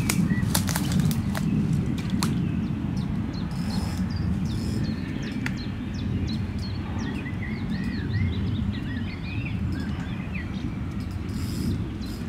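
Steady low rumble of wind buffeting the microphone, with a few sharp clicks in the first two seconds and small birds chirping repeatedly in the second half.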